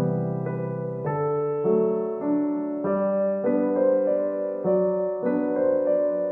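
Background music: a keyboard playing held chords that change every half second to a second.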